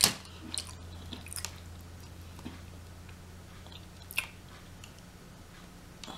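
Close-up chewing and biting on rotisserie chicken: scattered small wet clicks and smacks of the mouth, with a sharper one at the start and another about four seconds in.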